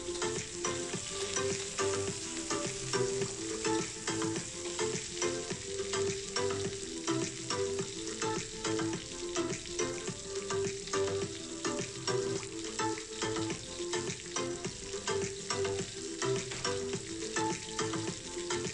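Lemongrass stalks and kaffir lime leaves frying in hot oil in an aluminium wok, a steady sizzle dotted with small crackles.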